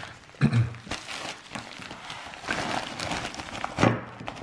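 Plastic bubble mailer rustling and crinkling as it is handled, with a few knocks of heavy plastic-bagged silver bars against a wooden tabletop, the loudest about half a second in and near the end.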